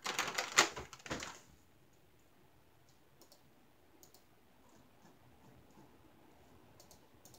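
Small clear plastic storage jars in a plastic drawer clicking and rattling against each other as the drawer is set down and handled. A quick run of clicks in the first second and a half, then only a few faint ticks.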